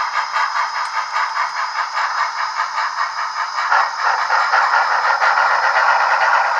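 Two HO-scale Blackstone steam locomotives running together, each playing digital steam chuffing through its small on-board speaker: rapid, even chuffs with a steady high-pitched tone over them. The two sound decoders' 7-band equalizers are set differently, one locomotive with the bass boosted for a deeper chuff and the other with the bass taken out for more highs.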